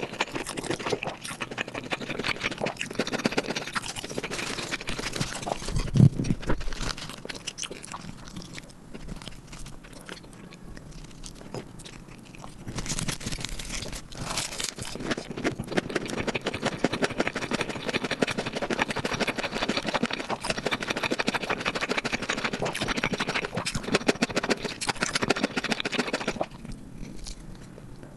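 Close-miked eating: chewing of spicy marinated pork and lettuce wraps, with crunching and wet mouth sounds. Quieter for a few seconds in the middle, with a single low knock about six seconds in.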